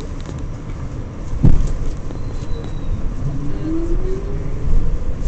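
R46 subway car running, with a steady low rumble, a loud knock about a second and a half in, and a rising motor whine from about three seconds in as the train picks up speed.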